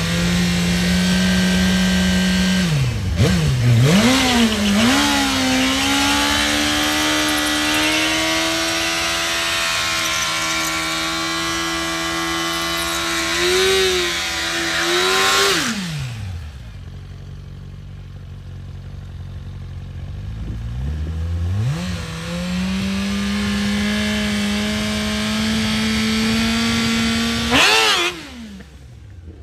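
Suzuki GSX-R1000R's inline-four engine held at high revs in a water-box burnout, the rear tyre spinning on the wet track, the revs falling off about halfway through. After a few quieter seconds the engine climbs again and holds a steady high pitch, then drops away near the end.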